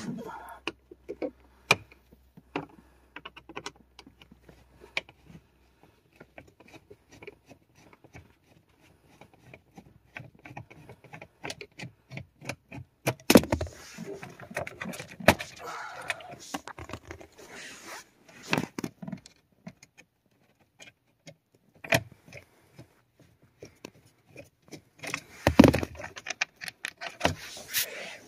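Irregular clicks, scrapes and small rattles of hand work under a 2000 Honda Civic's dashboard: a screwdriver backing out the lower dash panel's screws, and the loose screws and plastic trim being handled. There are louder knocks about halfway through and again near the end.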